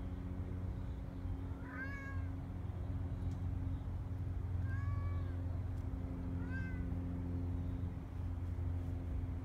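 A tuxedo kitten meowing three times, short calls that rise and then fall in pitch, over a steady low hum.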